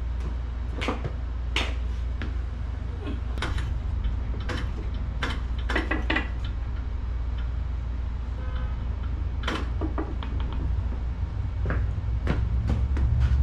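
Scattered sharp metal clinks and knocks as parts of a motorcycle's rear wheel and shaft final drive are handled and fitted into place, over a steady low hum.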